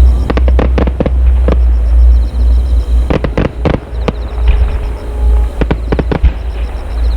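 Aerial fireworks shells bursting in clusters of sharp bangs and crackles over a deep, continuous low rumble.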